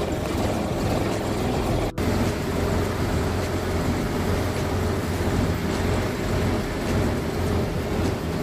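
Lorry's diesel engine idling steadily, heard from inside the cab, with a brief cut about two seconds in.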